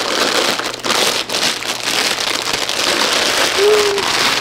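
Packaging crinkling continuously as it is handled and opened, a dense crackle of many small sharp crinkles.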